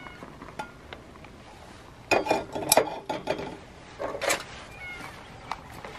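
A spoon stirring and scraping food in a freeze-dried meal pouch, with crinkly, clattering bouts about two seconds in and again about four seconds in.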